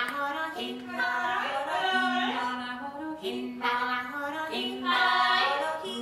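Recorded female voices singing a Gaelic-song-style imitation of courting Leach's storm petrels, in short repeated phrases of stepped, pitched notes, played over loudspeakers.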